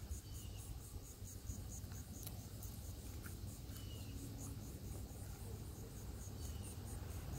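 Faint insects, such as crickets, chirping in a fast, even, high-pitched pulse of about four a second, with a few brief faint chirps over the top.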